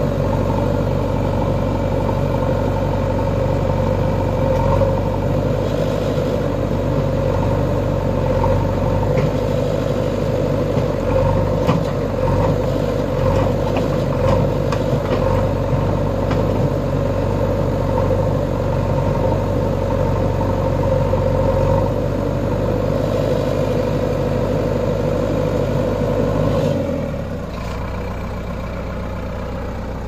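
JCB 3DX backhoe loader's diesel engine running at raised revs under working load, with a few knocks and clatter from the machine. Near the end the revs drop back to a steady idle.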